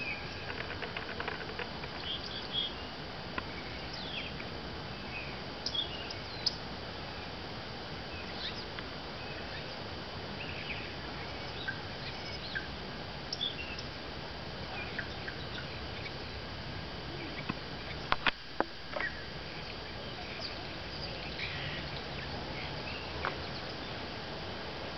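Outdoor background: a steady hiss with scattered short, high chirps, typical of birds calling. A few sharp clicks come about eighteen seconds in.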